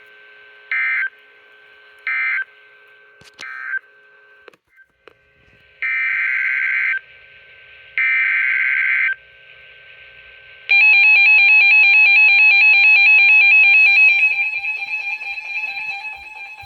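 EAS data bursts from a NOAA Weather Radio broadcast: three short screechy bursts a little over a second apart (the end-of-message signal), then, after a pause, two longer bursts of the SAME header for a new alert. About 11 seconds in a loud alert tone starts, and it drops in level after about three seconds.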